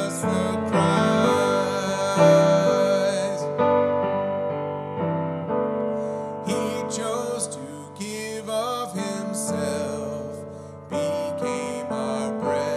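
Upright piano playing a slow, gentle hymn accompaniment of held chords and melody notes.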